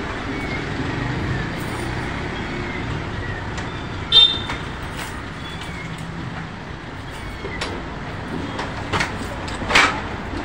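Steady street traffic noise, with a brief high-pitched beep about four seconds in and a couple of sharp clicks near the end.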